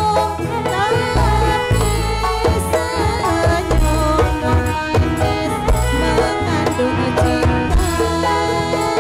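Live Javanese gamelan music accompanying a dance: drums beat steadily under ringing pitched tones, with a sung or gliding melody line on top.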